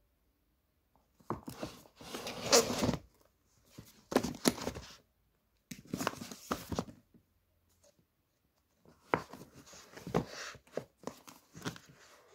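Books being handled and slid against each other on a crowded bookshelf: four bursts of scraping and rustling with small knocks.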